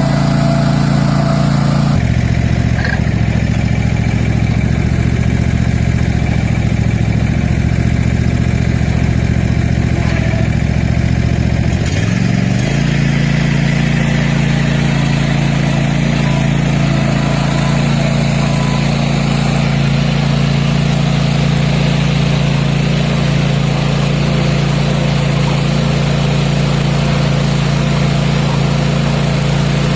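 Cub Cadet ZT1 Ultima zero-turn mower's engine running steadily. Its note drops about two seconds in and rises back up about twelve seconds in.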